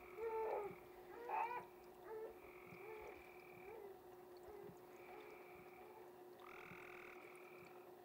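Soft sobbing that trails off within the first two seconds, then frogs giving drawn-out trills of about a second each, three or four times, over a steady low hum.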